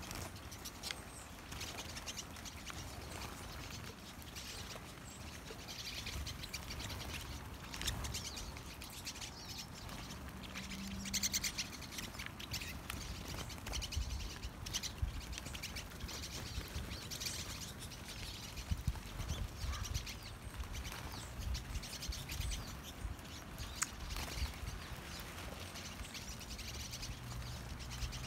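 A feeding flock of pine siskins, with some lesser goldfinches mixed in, chirping and twittering in many short, scattered calls, over an intermittent low rumble.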